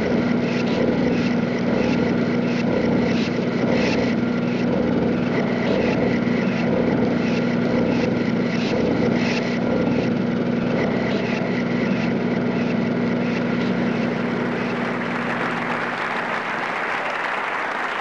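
A small engine running steadily, with a regular ticking beat over its hum; it grows noisier and a little quieter over the last few seconds.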